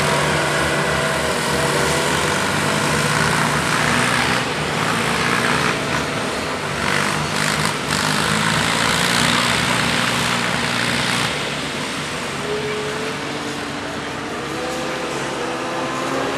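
Farm tractor's diesel engine running hard under full load in a pulling run, a steady drone that drops off about eleven seconds in as the engine eases off.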